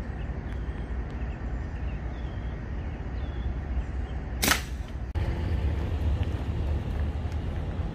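A single sharp crack from an air rifle shot fired at an iguana, about four and a half seconds in, over a steady low outdoor rumble.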